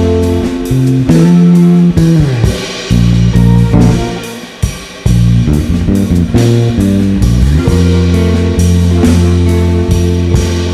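Instrumental jazz-blues-rock trio of bass, drums and guitar playing, with the bass carrying sustained low notes under plucked guitar lines and a steady drum beat.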